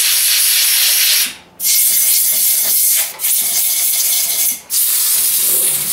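Compressed-air blow gun blasting air into a tractor engine part in four long hissing bursts with brief breaks between them, a faint whistle in the middle bursts.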